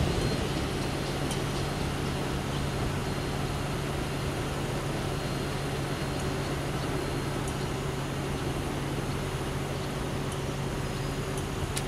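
Steady low engine hum of an idling vehicle over a wash of outdoor background noise.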